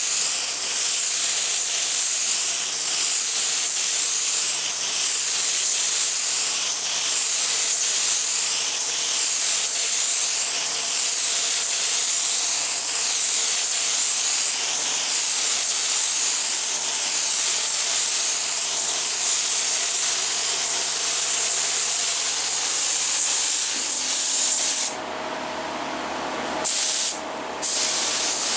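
A SATA minijet 4400 HVLP spray gun with a 1.2 tip spraying base coat: a steady, high air hiss that swells and fades in even passes about every two seconds. Near the end it stops for about a second and a half, sprays briefly, then stops again for a moment.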